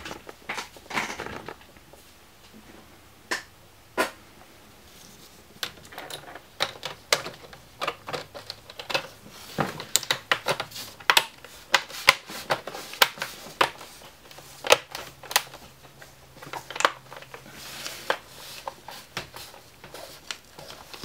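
Plastic screen bezel of an Asus X54C laptop being pressed onto the display lid, its clips snapping into place in a long, irregular run of sharp clicks that is thickest in the middle.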